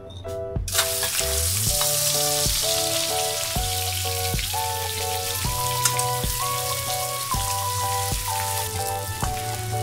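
Raw shrimp hitting hot mustard oil in a kadai: a sudden burst of sizzling about a second in, then steady frying. Background music with a steady beat plays under it.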